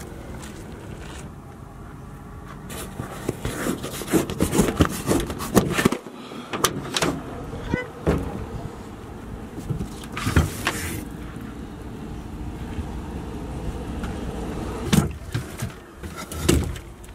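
A series of irregular knocks and clatters over a low steady rumble, bunched in two spells with a lull between them.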